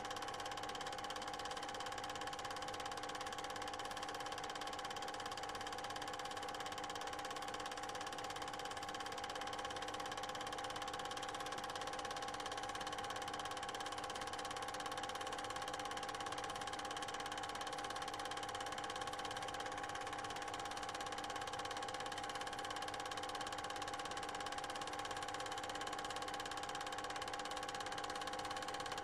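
Steady machine hum with several held tones, unchanged through the picture cuts: the motor and mechanism of an 8mm cine projector running as the film is shown.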